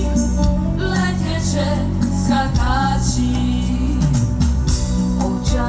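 Women's vocal group singing a song over instrumental accompaniment that holds steady low notes underneath.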